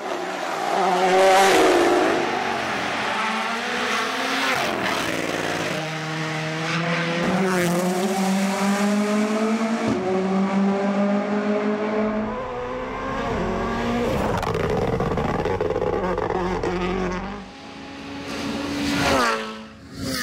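Rally cars at speed on a stage, their engines revving hard and dropping with each gear change. Cars pass close by, loudest about a second in and again near the end.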